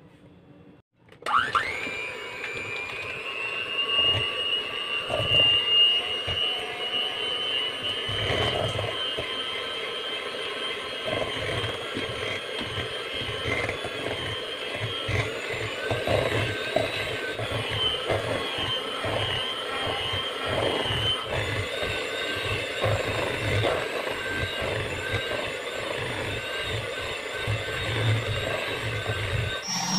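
Electric hand mixer switching on about a second in with a rising whine, then running steadily, its beaters whipping powdered whipped-topping mix and chilled milk into frosting in a stainless steel bowl. Irregular knocks of the beaters against the bowl run under the motor.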